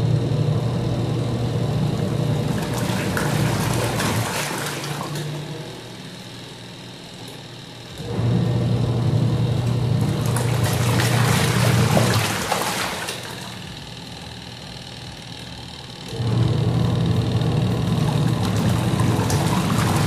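Midea 10 kg twin-tub washing machine's wash tub agitating: the motor hums and the pulsator churns soapy water and clothes in runs of about five seconds, stopping for two to three seconds between runs as it changes direction.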